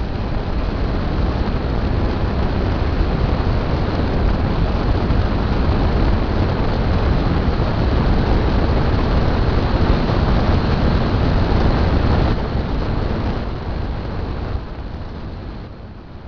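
Wind buffeting the microphone of a motorcycle-mounted camera at road speed, a loud, dense rush that swamps the engine and tyre noise. It eases about twelve seconds in and drops further near the end.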